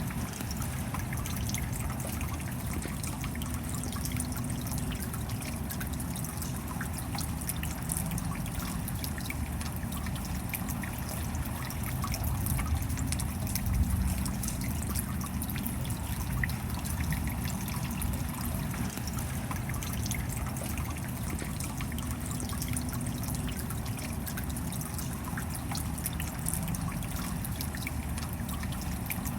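Steady rain: a dense patter of separate drops over an even hiss, briefly a little louder about halfway through.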